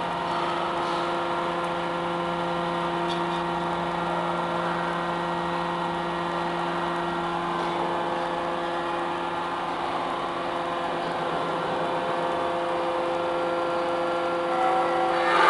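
Double-ram metal baler's hydraulic power unit running with a steady hum, swelling louder briefly near the end.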